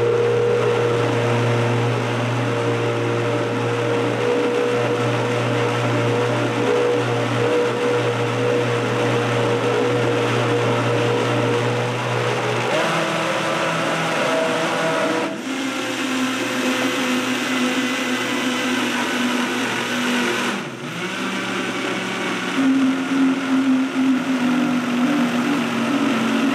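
High-powered countertop blender running continuously, blending a thick vegan sour cream until smooth while a tamper is worked down through the lid. Its steady hum changes pitch about halfway through and twice more, and grows uneven near the end as the tamper pushes the mixture.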